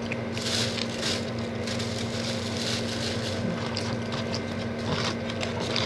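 Rustling of a plastic sauce packet and cardboard food boxes as food is handled, over a steady low electrical hum.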